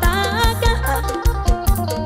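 Lam sing (mor lam) band music with a steady fast beat and a lead melody that bends up and down in pitch.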